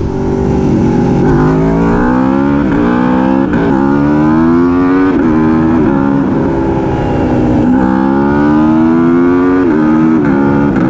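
Aprilia Tuono V4 Factory's V4 engine through an SC Project CR-T exhaust, accelerating hard through the gears: the engine note climbs steadily, then drops back at each of several gear changes and climbs again.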